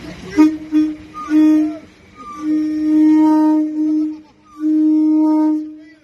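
Class 390 Pendolino electric train's horn sounding loudly as it passes, a single steady note given as about three short toots and then two long blasts.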